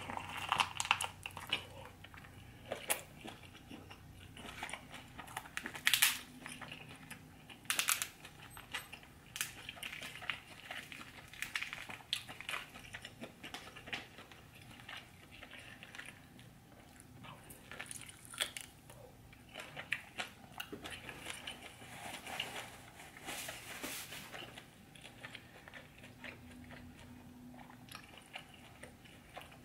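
Close-miked chewing and wet mouth smacking while eating a buttery seafood boil, with irregular sharp clicks and crunches, a few of them louder.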